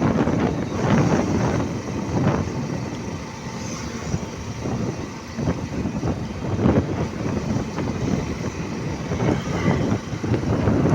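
Rumble of a moving vehicle on the road, with wind gusting against the microphone in irregular buffets.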